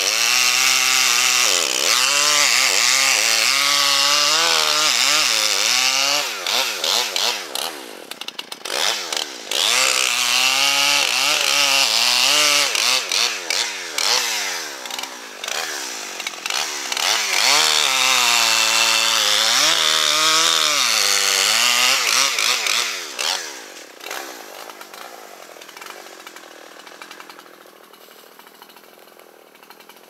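Gas chainsaw cutting into a standing tree trunk at full throttle, the engine pitch sagging and rising as the chain works through the wood. The saw drops back off the throttle a couple of times between cuts, and about 24 seconds in it falls away to a low idle.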